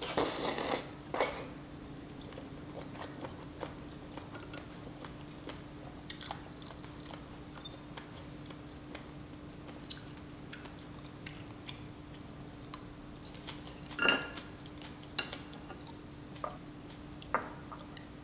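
Slurping a thick glass noodle for about a second, then chewing with soft wet mouth clicks. A few sharper clinks of metal chopsticks against the glass bowl, the loudest about fourteen seconds in.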